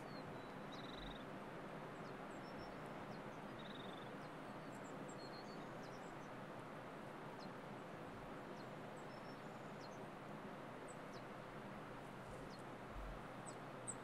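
Steady outdoor ambience, an even hiss, with faint, scattered high bird chirps and a few short trills.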